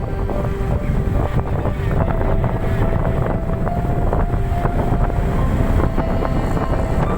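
Wind rushing over the microphone with a vehicle running underneath, as from a camera on a moving vehicle. The noise is loud and steady, with faint held tones that step up in pitch a couple of times.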